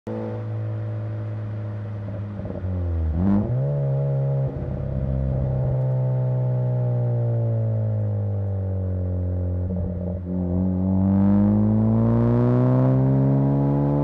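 Turbocharged Ford four-cylinder engine and exhaust running on the road. About three seconds in the note drops and jumps straight back up; it then eases slowly down for several seconds before rising steadily as the revs climb near the end.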